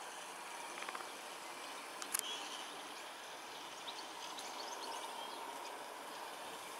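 Outdoor garden background hiss with a brief run of clicks about a second in and one sharp click about two seconds in, likely a garden-railway model train running on its track out of view. Faint short bird chirps come a little later.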